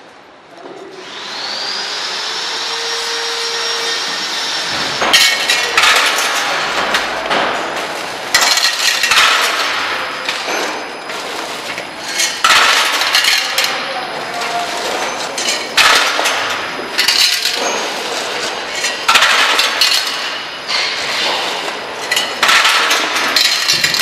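Semi-automatic screw and nut packing machine running: a hiss with a rising whine starts about a second in. From about five seconds in come repeated sharp metal clanks and clinks every second or two as the stainless-steel hopper conveyor handles small steel fasteners.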